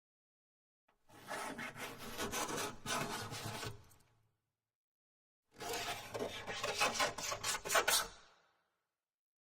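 Scraping sound effect: two separate bouts of rough, rasping scraping, each about three seconds long, with dead silence between them.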